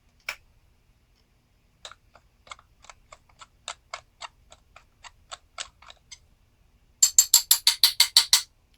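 Ratcheting screwdriver clicking as screws are backed out of a small-engine carburetor: a single click, then a steady run of about three or four clicks a second, a pause, and a faster, louder run of clicks near the end.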